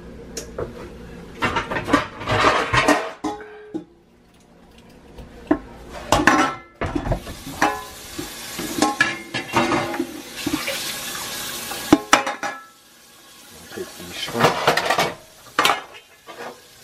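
Kitchen handling sounds: a bowl and a metal sheet pan clatter and scrape in several short bunches of knocks. About seven seconds in there is a steady hiss lasting several seconds.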